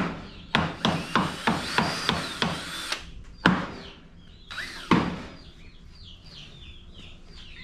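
A quick run of sharp knocks, about three a second, then two more spaced a second or so apart; afterwards small birds chirping repeatedly.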